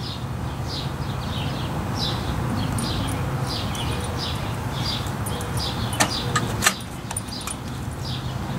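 A bird singing a series of short, falling chirps, about two a second, over a steady low hum. Two sharp knocks come about six seconds in.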